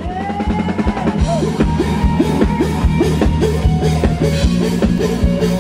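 Live rock band playing: an electric guitar lead with long held notes, bends and slides over a steady drum kit beat and bass.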